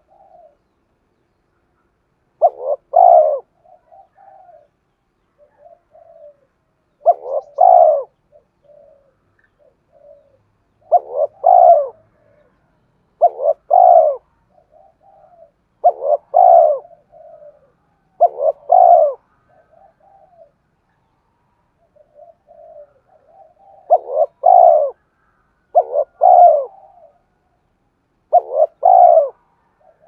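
Spotted dove cooing: about nine loud two-note coo phrases, one every two to five seconds, with softer short notes in between.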